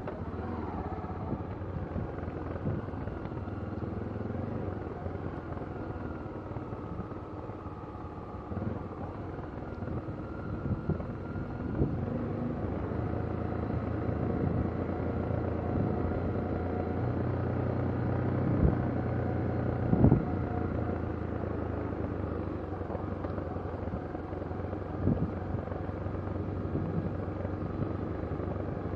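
A motor running steadily with a low drone that shifts a little in pitch, with a few sharp knocks, the loudest about two-thirds of the way through.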